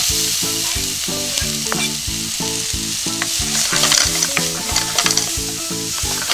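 Chopped onion and diced chicken thigh sizzling in butter in a hot frying pan. The onion is tipped in at the start, then stirred and scraped around the pan with a spatula, with scattered clicks of the spatula against the pan.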